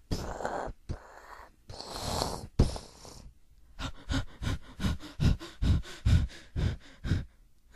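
Homemade T. rex sound effect: a person snorting and huffing breathily into the microphone, a few long snorts first, then a quick run of about a dozen short huffs, roughly three a second.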